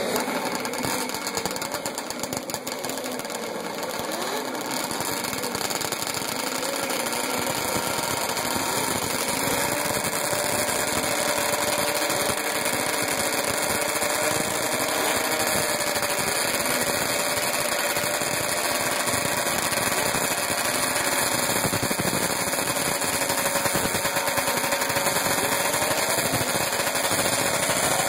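Snowmobile engines idling at the drag-race starting line: a steady buzzing engine note that wanders a little in pitch, beginning to rise near the end.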